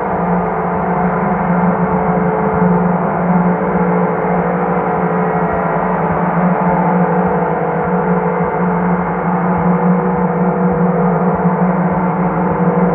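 Large Chinese chau gong (tam-tam) played continuously with a felt mallet, giving a steady, sustained wash of many overlapping tones over a strong low hum, swelling gently without distinct strikes.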